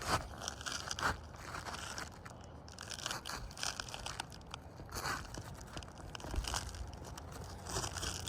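Irregular scraping and crunching of roof shingles being worked on by hand, with a few louder scrapes spread through.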